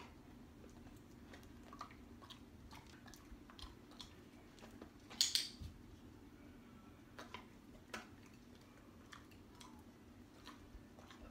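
A dog chewing a treat, with small scattered ticks, and one sharp double click from a training clicker, pressed and released, about five seconds in, marking the dog's chin touch.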